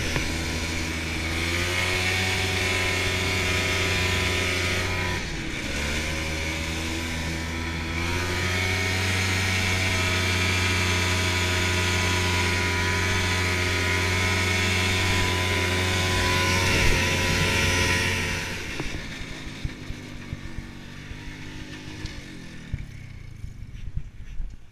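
Ski-Doo snowmobile's two-stroke engine running hard at speed, easing off briefly around five seconds in and then pulling back up. Near the end the throttle comes off and the engine winds down to a low idle as the sled stops.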